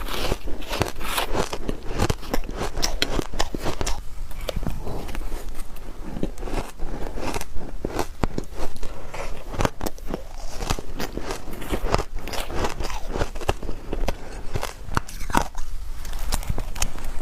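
Close-miked biting and chewing of soft shaved ice, with dense, irregular crunching and crackling throughout.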